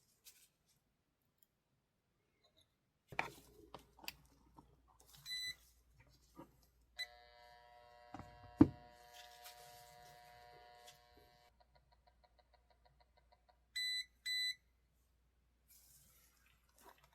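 Small clicks and taps of phone parts and tools being handled on a bench, with one sharp knock. A steady electronic hum of several tones runs for about four seconds, and short electronic beeps sound once about five seconds in and twice in quick succession near the end.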